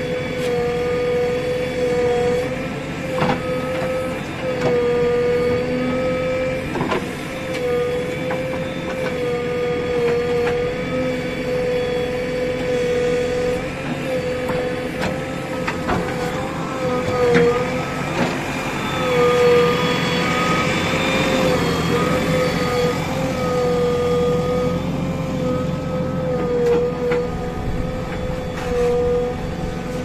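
JCB 3DX backhoe loader's diesel engine running under load with a steady whine that wavers slightly as the backhoe arm digs a trench. A few sharp metallic knocks come from the arm and bucket.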